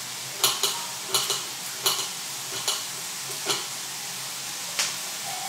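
Knife knocking on a cutting board as a garlic clove is peeled and cut, a series of irregular sharp taps. Behind it, the steady sizzle of onions frying in olive oil in a pan.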